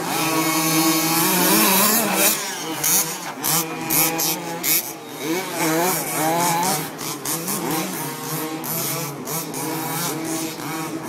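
Small two-stroke engines of several gas-powered 1/5-scale RC Baja cars racing, each revving up and down over the others as they throttle on and off around the track.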